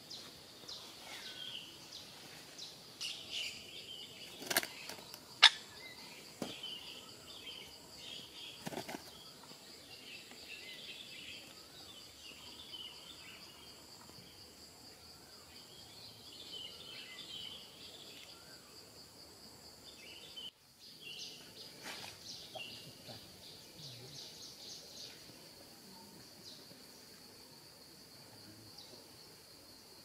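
Woodland ambience: a steady high insect drone runs under scattered short bird chirps. A few sharp snaps of dry twigs and leaves come from someone walking through leaf litter, the loudest about five seconds in and others near nine and twenty-two seconds.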